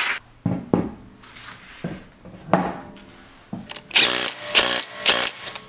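Cordless impact wrench with a socket running lug nuts onto a wheel hub in short bursts, three quick bursts near the end. Before them come a couple of knocks as the wheel is fitted.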